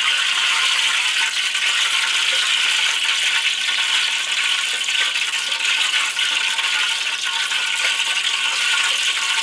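Belyashi, meat-filled yeast-dough patties, deep-frying in hot oil in a wok: a steady, dense sizzle and crackle.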